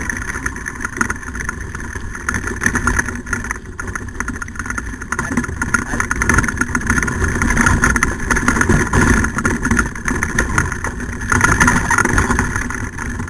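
Dryland dog-sled kart rolling over a rough, leaf-strewn field track, its wheels and frame giving a steady rumble with constant small knocks and rattles.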